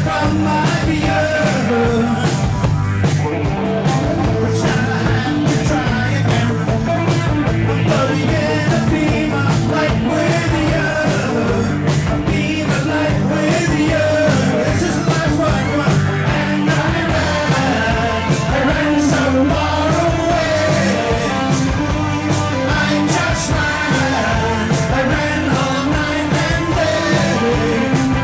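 Rock song with a steady beat and a singing voice.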